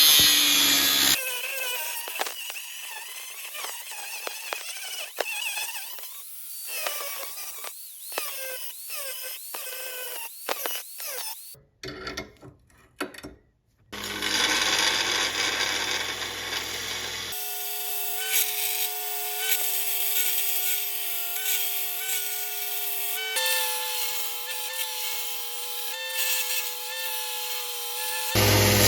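Power tools cutting and grinding the rusted steel, heard in several short cut-together clips; in the last stretch a motor runs with a steady whine.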